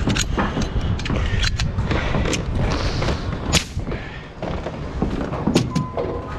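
Framing work on OSB roof sheathing: an irregular string of sharp knocks and bangs from wood blocks being handled and a pneumatic framing nailer firing, over a steady low rumble. A steady electronic beep starts near the end.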